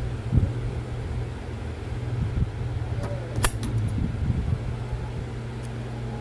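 Steady low electric motor hum, with light handling of fabric and thread and one sharp click about three and a half seconds in.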